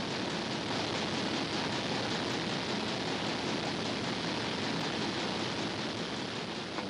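Steady, even rushing noise with no distinct tone or beat: machinery background noise in a marine engine room.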